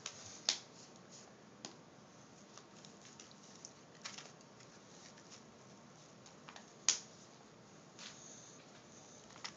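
Things in an Easter basket being rummaged through by hand: a few scattered clicks and light rustles, the sharpest about seven seconds in.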